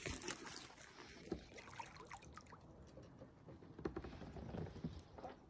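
Faint trickling water and scattered small knocks around a kayak on the water.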